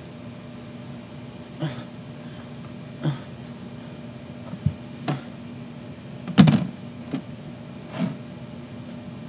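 A series of short knocks and bumps from a phone and a hard plastic case being handled and set in place, about seven in all, the loudest about six and a half seconds in, over a steady low hum.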